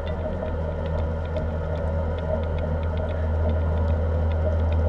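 Steady low machine hum with faint scattered ticks, growing slightly louder near the end.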